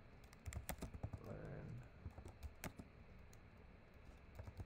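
Typing on a computer keyboard: quiet, irregular keystrokes.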